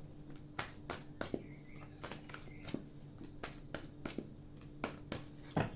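Tarot cards being shuffled by hand: soft, irregular clicks and flicks of the cards over a faint steady hum.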